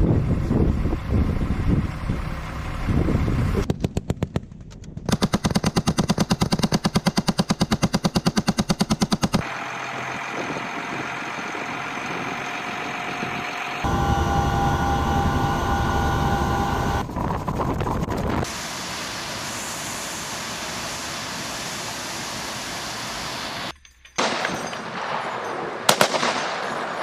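Machine gun firing a long burst of rapid, evenly spaced shots, preceded by heavy low thumps. It is followed by stretches of steady engine and wind noise, one with a high whining tone, and a couple of sharp cracks near the end.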